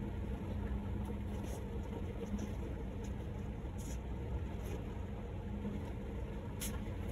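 A steady low mechanical hum with a constant tone, like a motor running in the background, and a few brief soft scuffs.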